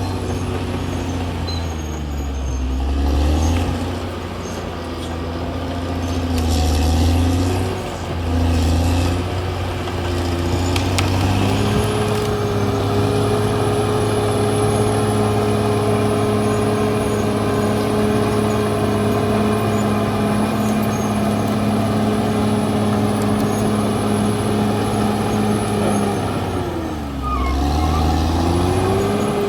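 Caterpillar D6R XL bulldozer's diesel engine working, its revs rising and falling for the first dozen seconds, then held high and steady under load for about fourteen seconds before dropping briefly near the end and climbing again.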